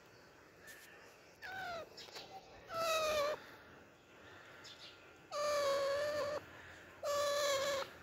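Alexandrine parakeet giving four drawn-out calls. The first two slide down in pitch, and the last two are longer and held level.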